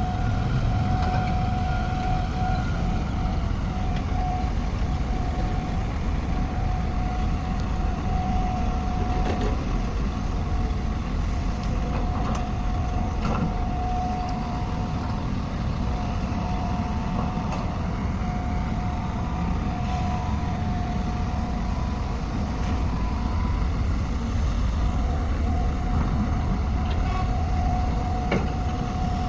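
Heavy construction machine's diesel engine running steadily under a low rumble, with a steady high-pitched whine that breaks off briefly a few times and occasional faint clicks.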